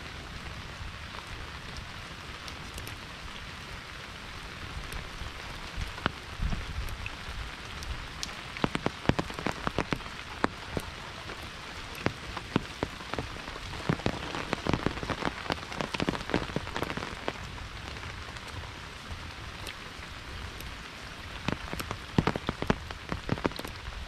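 Steady monsoon rain falling, with many sharp, close drop impacts that come thickest through the middle and again near the end.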